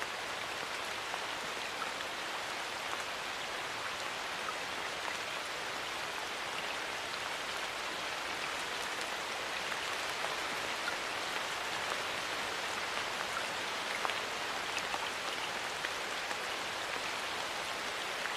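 Steady rain falling on a surface, an even hiss with scattered ticks of single drops.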